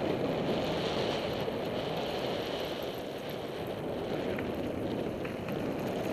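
Steady rushing noise of a mountain bike riding a dirt singletrack: tyres rolling on dirt and wind across the camera microphone, with a few faint ticks from the bike in the second half.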